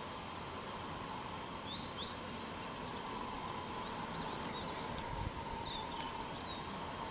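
Outdoor lakeside ambience: a steady hiss and drone, with small birds chirping in short calls throughout. There is a soft low thump about five seconds in.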